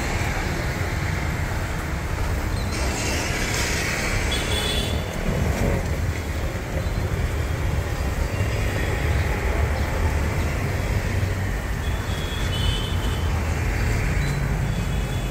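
Jalebi frying in a wide iron wok of hot oil: a steady sizzling hiss over a continuous low rumble, with two faint brief high tones.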